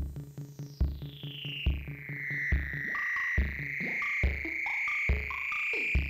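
Live electronic jam on Korg Volca synths: the Volca Beats drum machine thumps a kick drum about every 0.85 s with quick ticking hi-hats in the first half. Above it a high synth tone sweeps down over the first two seconds and then holds steady, and gliding synth bass notes come in from about three seconds in.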